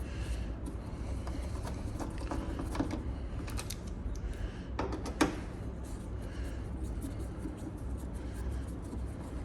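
Scattered small clicks and knocks of a tool working the Torx T30 screws of a car door latch, two of them sharper, about 3 and 5 seconds in, over a low steady hum.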